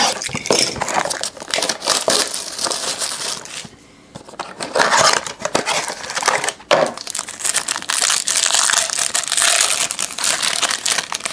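Plastic wrapping on a pack of trading cards being torn and crinkled as the pack is opened, with a short lull about four seconds in.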